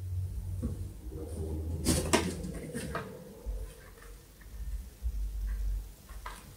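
Low rumble of a hand-held camera being moved about, with light knocks and rustles. The loudest is a quick cluster of knocks about two seconds in, and a single knock comes near the end.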